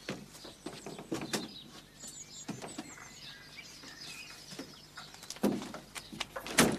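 Birds chirping faintly in the background, under scattered rustles and light knocks, with two louder thumps near the end.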